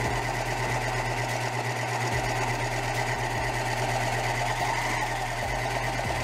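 Janome 7933D serger (overlocker) running steadily at an even speed, sewing a four-thread overlock stitch along the edge of a fabric scrap, with its threading and settings just as it came from the box.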